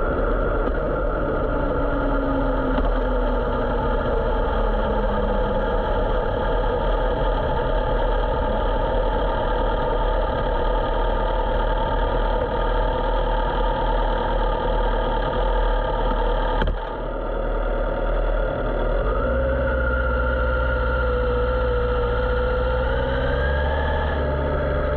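Motorcycle engine running steadily. A sharp click comes about seventeen seconds in, and the engine note changes after it, with a tone that slowly wavers in pitch.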